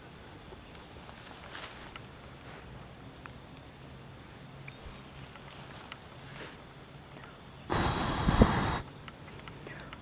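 A faint, steady high-pitched insect trill. Near the end comes a loud rustle of about a second as the shot junglefowl is handled in the grass, feathers and grass brushing against each other.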